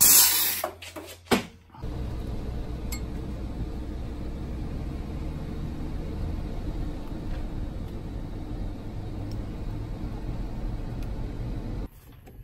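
Steady engine and road rumble inside the cab of a vehicle towing a trailer, starting about two seconds in after a brief loud hiss and clank, and cutting off near the end.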